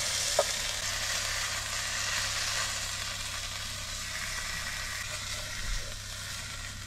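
Hot oil sizzling in a small non-stick pot around seared fish fillets being lifted out with chopsticks; the sizzle slowly fades toward the end. One light tap about half a second in.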